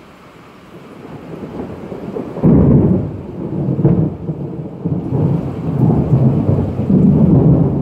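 Thunder following a lightning flash: a low rumble swells over the first two seconds, breaks into a loud clap about two and a half seconds in, and rolls on in repeated swells.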